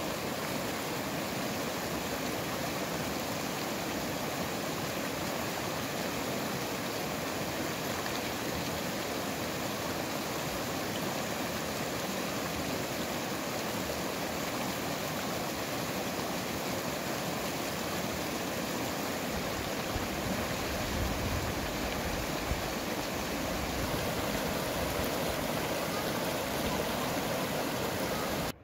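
Fast, shallow mountain stream rushing over rocks: a loud, steady rush of white water, a little louder near the end.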